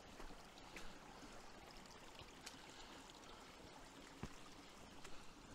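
Faint, steady rush of a small hillside stream running, with a few light knocks scattered through it.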